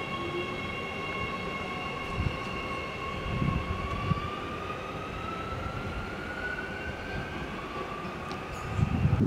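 Adelaide Metro 4000-series Bombardier electric train pulling away, its traction motors giving a steady whine that rises slowly in pitch as it accelerates. A few low thumps are heard along the way, and a louder low rumble comes in near the end.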